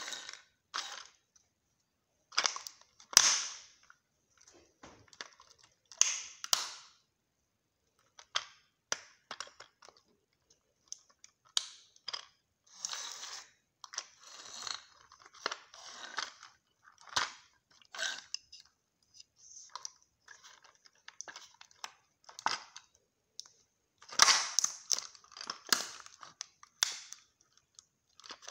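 Resin scale model of a Honda Civic Type R cracking and crunching under a bare foot on concrete, in irregular sharp snaps and crunches as the body and roof give way. The loudest cracks come about three and six seconds in, and again in a cluster near the end.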